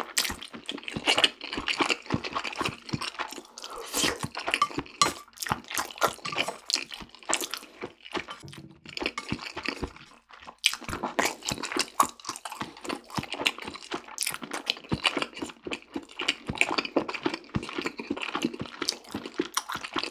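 Close-miked chewing of a mouthful of spicy cheese fire noodles: wet, irregular mouth clicks and chews, several a second, with a couple of brief pauses.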